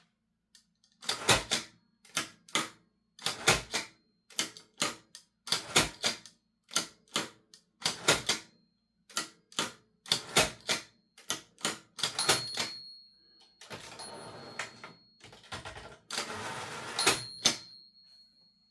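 Olivetti Linea 88 manual typewriter being operated. Its type bars strike in quick clusters of sharp clacks, then there are two longer rattling stretches. A short high ring sounds three times.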